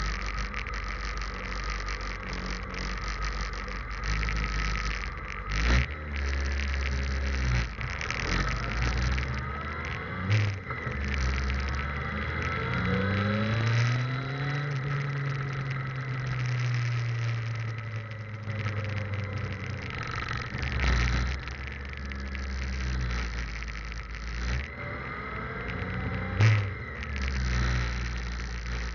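Motorcycle engine running while riding, its pitch rising over several seconds about a third of the way in and then holding steady, with several sharp knocks along the way. Recorded through a cheap camera with very poor audio.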